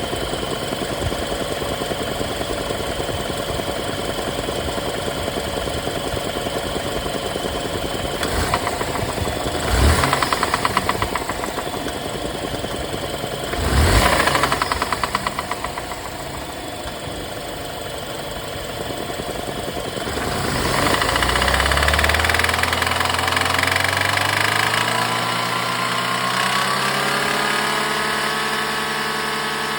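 BMW N20 turbocharged four-cylinder engine idling with a rhythmic knock, which the owner takes for rod knock. The throttle is blipped twice, about ten and fourteen seconds in, then the revs climb slowly and hold higher near the end.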